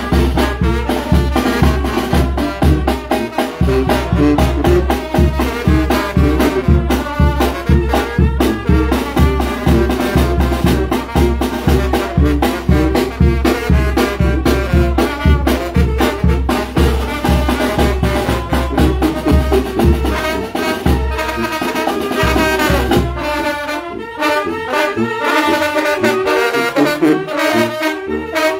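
Wind band playing: trumpets, trombones and saxophones over a steady bass-drum beat. The drum beat drops out a little past twenty seconds in, leaving the horns.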